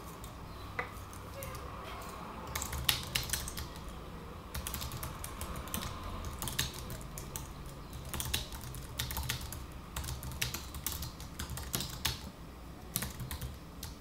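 Typing on an Apple aluminum wired keyboard, its low-profile rubber-dome keys giving soft key presses that are not very clicky. A lone tap comes first, then from a few seconds in the keystrokes follow in quick, uneven runs.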